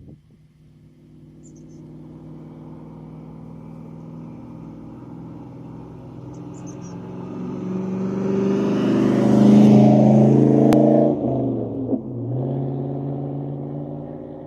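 A motor vehicle's engine drawing closer and growing louder, then dropping in pitch as it goes past about eleven seconds in, and running on more quietly.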